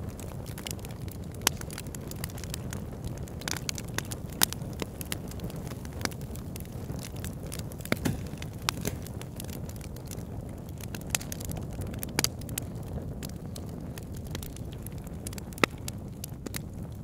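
Wood fire crackling in a fireplace: irregular sharp pops and snaps, a handful louder than the rest, over a steady low rumble.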